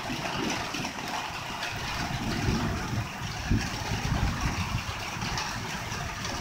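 Steady heavy rain falling, a continuous hiss, with an uneven low rumble beneath it.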